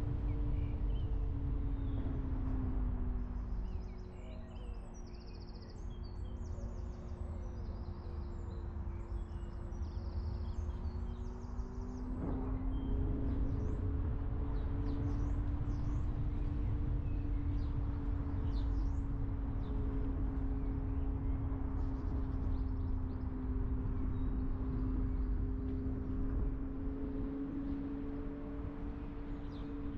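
Car driving: low road and tyre rumble under a steady hum whose pitch falls as the car slows a few seconds in and rises again as it picks up speed after about twelve seconds, with a single knock around then.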